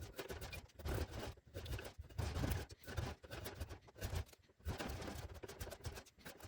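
Draw knife shaving a juniper handle blank: repeated short scraping strokes, about two a second, some with a dull knock.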